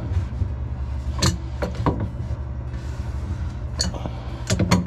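Adjustable wrench clinking against the metal nut on a beer-tap shank as the nut is turned and the wrench repositioned: a handful of sharp metallic clicks over a steady low hum.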